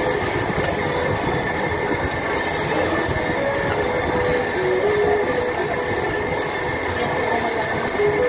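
Steady, loud rushing of a table-grill extraction hood and restaurant ventilation, with a faint even hum of tones running through it.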